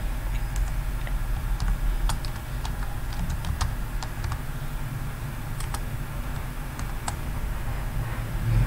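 Typing on a computer keyboard: irregular, scattered keystroke clicks over a steady low hum.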